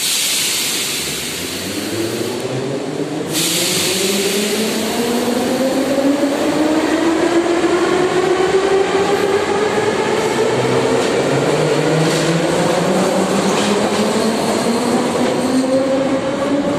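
Metro train pulling out: a loud hiss of air that cuts off suddenly after about three seconds, then the traction motors' whine rising steadily in pitch as the train gathers speed.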